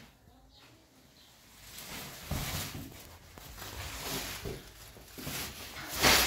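Woven plastic sacks rustling and scraping as they are grabbed and hauled, with shuffling footsteps on a tile floor. It starts about two seconds in, and a louder rustle comes near the end.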